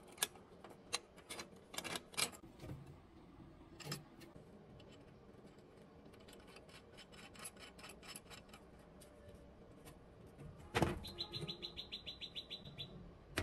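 Light metal clicks and taps as a steel bolt, washer and nut are fitted by hand into a hinge plate on galvanized square tube. Near the end, a sharp click is followed by a quick, even run of about a dozen high chirping ticks.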